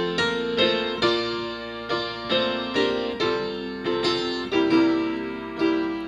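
Piano playing slow block chords, struck about twice a second, each ringing on until the next.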